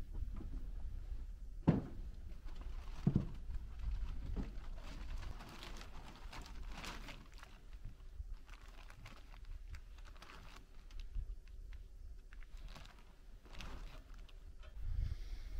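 Soft rustling and scattered light taps from a plastic tarp being handled and spread over a pickup bed, with two dull thumps about a second and a half apart near the start. A low wind rumble runs underneath.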